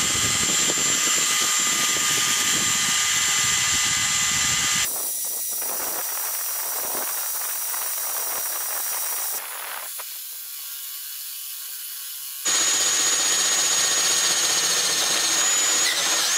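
Brushed-motor 20 V cordless drill boring through steel with a 13 mm high-speed-steel bit: a steady motor whine with the bit grinding into the metal. The sound changes abruptly about five seconds in, grows quieter around ten seconds, and returns to full level about twelve seconds in.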